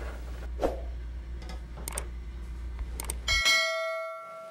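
A single bell-like ding rings out a little over three seconds in and fades away over about a second and a half, the chime of a subscribe-button animation. Before it, a steady low hum with a few faint clicks as the broken plastic coupler pieces are touched on the bench.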